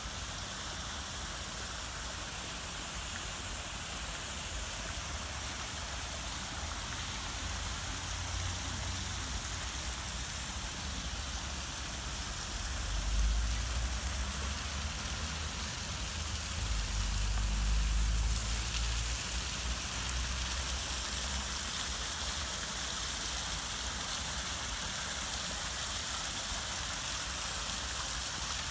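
Steady hiss and splash of a fountain's spray and a small cascade falling into a pond. A low rumble swells twice near the middle.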